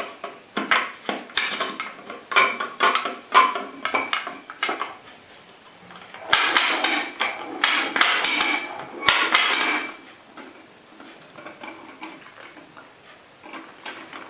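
A jerky gun being handled, making a string of clicks and knocks, with a denser, busier stretch of rattling in the middle before it turns to faint small clicks near the end.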